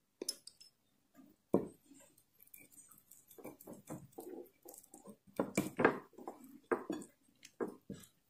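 Metal teaspoon clinking and scraping in irregular short strokes as sambal is scooped and spread over a soft popiah wrapper.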